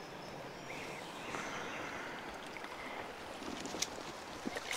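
River water flowing over rocks, a steady rush, with a few faint clicks near the end.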